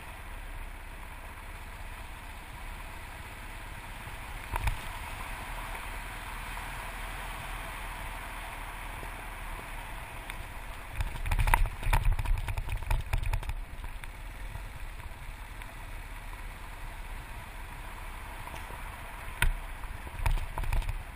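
Yamaha TT600RE single-cylinder four-stroke dirt bike riding along a gravel track: a steady mix of engine, wind and road noise. Knocks and thumps as the bike goes over rough ground, a loud cluster of them about halfway through and a few more near the end.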